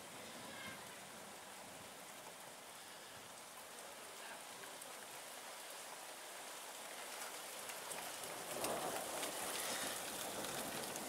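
Rain falling steadily, growing louder and heavier about eight seconds in as a thunderstorm downpour arrives.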